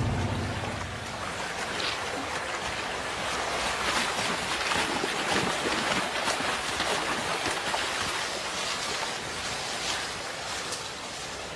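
Rushing river water and splashing as a brown bear runs through shallow water, the splashing loudest around the middle.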